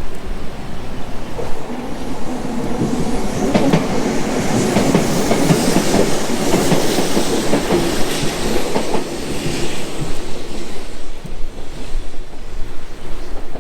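A train passing by, its wheels clattering over the rail joints: the sound grows over the first few seconds, is loudest in the middle, then fades away.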